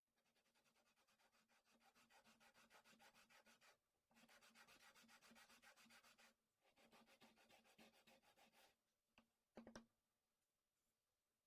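Quick back-and-forth rubbing strokes on craft material, about five a second, in three runs with short pauses between them, followed by a few light taps near the end.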